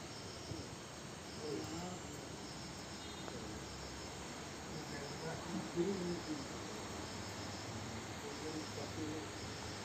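Insects chirping in a steady, high, pulsing trill, with faint voices murmuring now and then, loudest about six seconds in.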